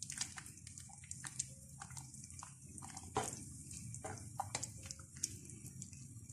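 Steel ladle stirring thin soup in an aluminium pot: faint, irregular clinks and taps of the ladle against the pot over soft sloshing of the liquid.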